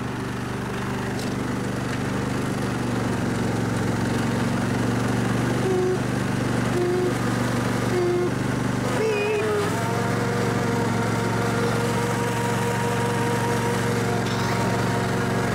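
Snapper riding mower's engine running steadily as the mower is driven, getting louder over the first few seconds. Short higher tones come and go, then a steady higher whine joins about nine seconds in and holds.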